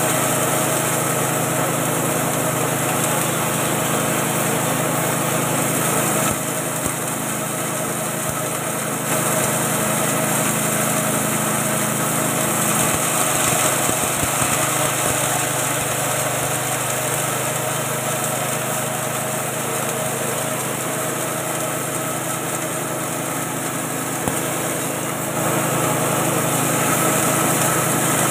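A 6.5 hp single-cylinder petrol engine running steadily, driving the mill of a 3-in-1 feed machine as it grinds feed into meal. The sound drops slightly about six seconds in and comes back up near the end.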